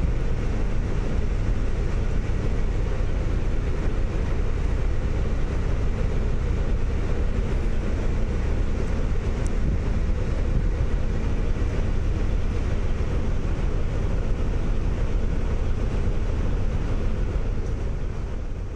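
Steady low engine rumble with rushing water and wind noise, heard from aboard a moving boat.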